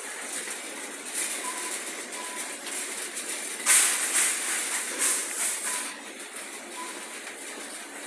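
Supermarket background noise with rustling, rattling handling noise, loudest in two bursts about four and five seconds in, and faint short beeps every second or so.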